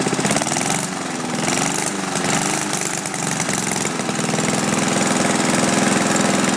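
Engine of a 1964 Powercraft 3 horsepower crank-start lawn mower running, its speed sagging and rising over the first few seconds as the idle knob is turned, then settling into a steady, slightly faster and louder run.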